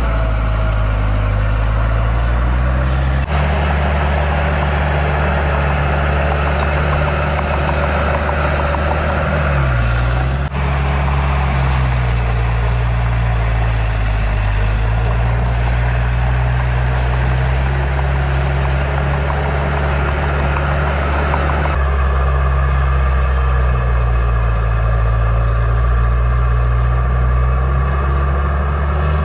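Heavy diesel engines of earthmoving machines running steadily, their low engine note dipping briefly in pitch a couple of times. The sound changes abruptly about three, ten and twenty-two seconds in.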